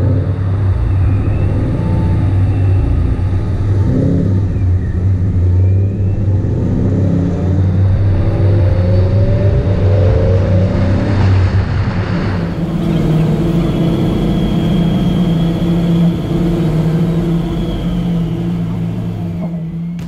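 Car engine and road noise while driving, heard from a camera on the hood. The engine pitch rises as it accelerates around the middle, then settles to a steady hum, and the sound fades out near the end.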